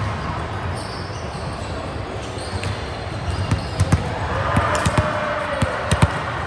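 Volleyball being hit and bouncing, with several sharp impacts from about halfway through, over a steady background din.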